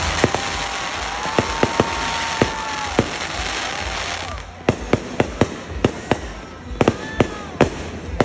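Fireworks going off: a dense crackling hiss with whistling shells and sharp cracks for about the first four seconds, then a rapid string of separate sharp bangs, several a second.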